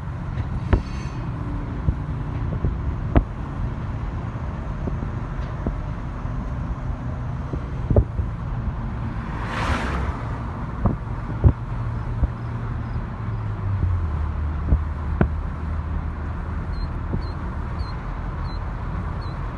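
Steady low vehicle rumble with a low engine tone that drops in pitch about two-thirds of the way through. Sharp, irregular knocks come through it, and a rushing swell rises and falls near the middle.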